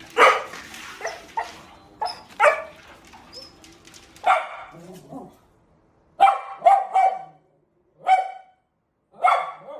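Dog barking in short, separate barks; in the second half a small dog gives three quick barks, then two more about a second apart.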